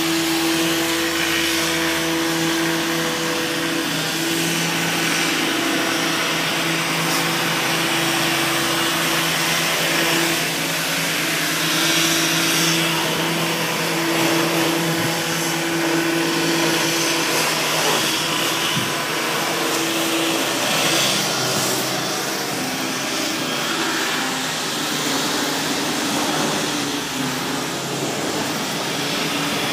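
Steady machine-like drone with a hiss over it and a low hum that fades out about two-thirds of the way through.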